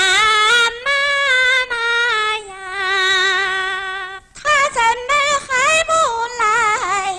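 Female voice singing Pingju opera, with held notes and wide vibrato. A long phrase breaks off about four seconds in, and a second phrase follows with quick wavering ornaments.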